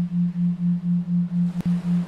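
A steady low electronic tone pulsing on and off about four times a second: a 3.9 Hz isochronic sleep tone over faint hiss. A single sharp click breaks the pulse near the end.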